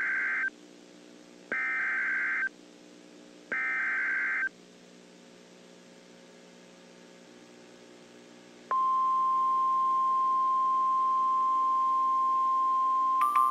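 Emergency Alert System signal: three one-second buzzy data bursts (the SAME header) two seconds apart, then after a pause a loud steady single alert tone that begins about nine seconds in.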